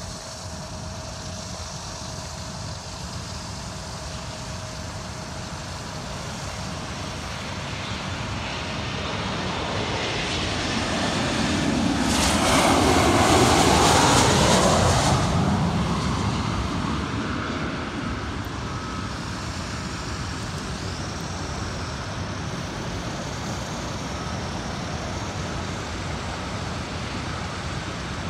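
Interjet jet airliner on final approach passing low overhead. Its engine noise builds for about ten seconds, is loudest around the middle with a whine that drops in pitch as it goes over, then fades. A steady hum of road traffic runs underneath.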